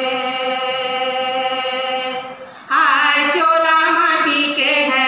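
Two women singing a Chhattisgarhi folk song together without accompaniment: a long held note that fades about two seconds in, a short breath, then a new phrase with a slight waver.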